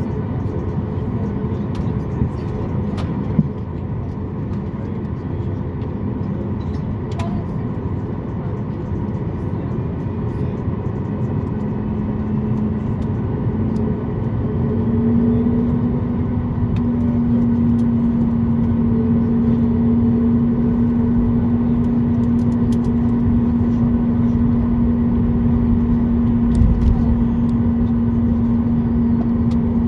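Cabin noise of a Boeing 737 MAX 8 on the ground: a steady rumble with a hum that steps up in pitch and gets a little louder about 12 to 15 seconds in, then holds steady.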